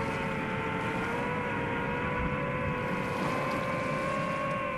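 Quadcopter drone's motors and propellers running steadily, a whine of several tones whose pitch drifts slightly down and then back up, over a hiss of wind and surf.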